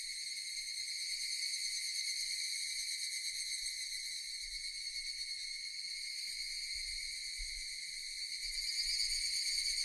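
Cicadas buzzing in one steady, unbroken high-pitched drone, growing a little louder near the end.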